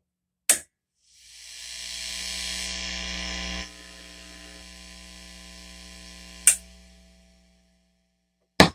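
Switch clicks on a homebuilt Marshall JMP 1987 50-watt tube amplifier as it is taken off standby: mains hum and hiss come up through the speaker cabinet and drop suddenly in level partway through. After a second click the hum dies away, and a third click comes near the end.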